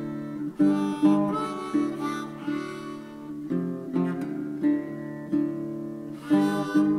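Background music: a harmonica playing held notes over acoustic guitar, with a steady beat.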